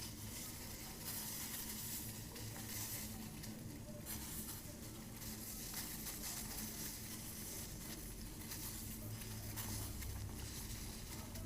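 A pot of water and herbs boiling steadily on a stove, being boiled down to reduce it, with a faint steady low hum underneath.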